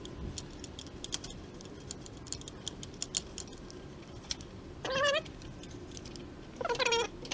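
A dog whining in short, wavering cries, once about five seconds in and again near the end. Under the cries there is faint, fine scratching and ticking from a small wire brush scrubbing out an injector bore on a first-generation Cummins 12-valve diesel.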